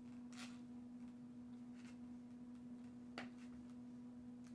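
Dog gnawing a rawhide bone: a few faint clicks and crunches of teeth on the rawhide, the clearest about three seconds in, over a steady low hum.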